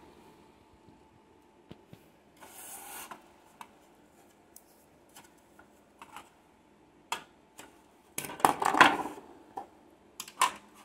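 Small items handled and set into a hard plastic desk organizer on a wooden desk: a brief rub about two seconds in, scattered sharp clicks, and a burst of knocking and rattling about eight seconds in, the loudest part, followed by a couple more clicks near the end.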